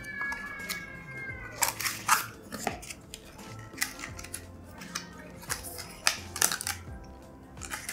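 Small retail box and plastic blister of a USB Wi-Fi adapter being handled and opened: scattered crinkles, clicks and taps of cardboard and plastic. A steady high two-pitch tone is held for about the first second and a half, then dips and stops.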